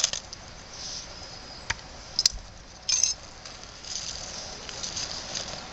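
Fire-lighting work with a knife and fat wood: a few sharp clicks, a short harsh scrape about three seconds in, then a faint steady hiss.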